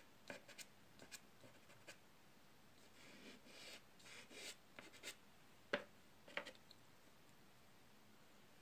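Soft pastel stick scraping over rough-textured drawing paper in short, faint shading strokes, laying a light highlight on the drawing. A few sharp taps come past the middle, the loudest just before six seconds in.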